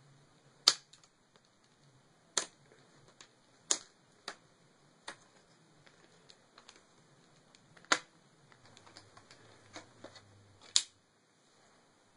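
Plastic laptop screen bezel being pried off, its retaining clips letting go in a series of sharp snaps, about eight of them at irregular intervals with fainter ticks between.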